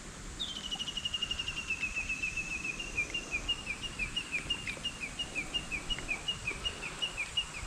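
A bird calling with a long series of short chirps: a quick run of notes begins about half a second in, then settles into about four downward-sliding chirps a second.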